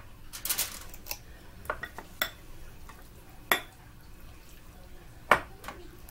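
Metal cookie scoop clicking and knocking against the mixing bowl and the foil-lined baking tray as batter is scooped out and released. About six sharp clicks come at uneven intervals, the loudest about three and a half and five seconds in.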